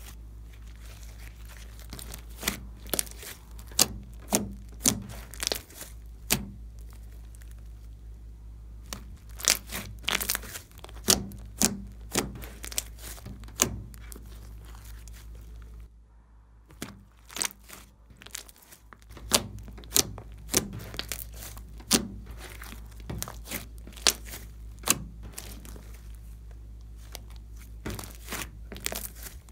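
Hands kneading and squeezing a large lump of glossy slime, making irregular sticky pops and clicks as it is pressed and pulled, with a brief lull about halfway through.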